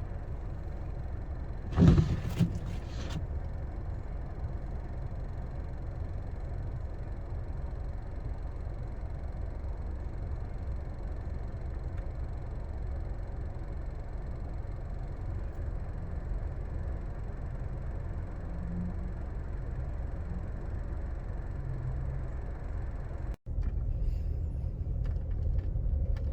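Steady low rumble of a car being driven, heard from inside the cabin. A single sharp knock about two seconds in. A moment of silence near the end, after which the rumble carries on slightly louder.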